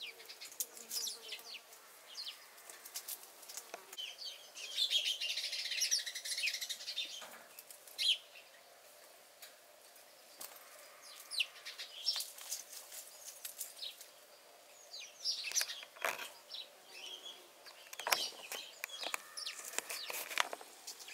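Small birds chirping and twittering, most densely about five seconds in, over scattered light rustles and clicks from kittens scampering over dry leaves and debris.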